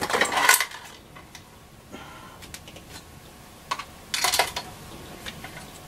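Small hard parts clattering and clicking as a small pot of screws and washers is handled, in a burst at the start and another about four seconds in, with scattered light ticks between.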